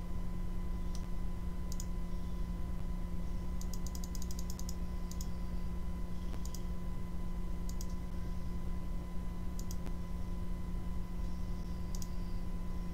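Computer mouse clicks and keyboard key presses: single clicks every second or two, and a quick run of about ten keystrokes around four seconds in. Under them runs a steady low hum.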